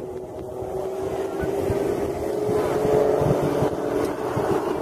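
Aerobatic plane's engine droning steadily overhead, growing louder over the first few seconds, with wind rumbling on the microphone.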